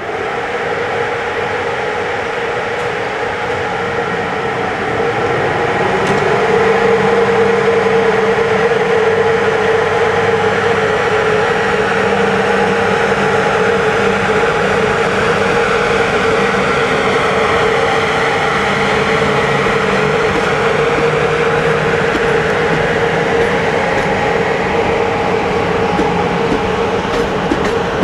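CFR electric locomotive pulling away with a passenger train: a steady machine hum with a strong even tone over a broad rushing noise, growing louder about five seconds in.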